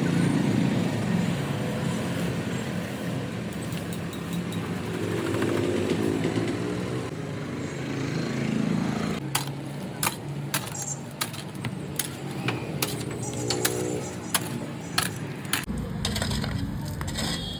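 An engine running, its pitch swelling and easing, with a series of sharp metallic clicks and knocks through the second half.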